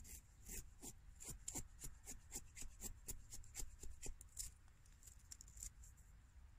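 Knife blade scraping along a dry wooden stick, carving off curled shavings to make a feather stick: quick, even strokes about four a second that stop about a second before the end.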